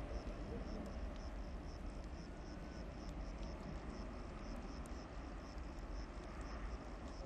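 Distant jet roar of a Boeing 737-800's CFM56 turbofans as the airliner accelerates away down the runway, a low rumble easing slightly as it recedes. An insect chirps in a steady, regular high pulse, about two to three chirps a second.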